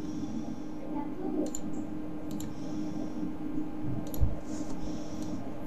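Computer mouse clicking several times, separate sharp clicks spread a second or so apart, over a steady low hum, with one dull thump about four seconds in.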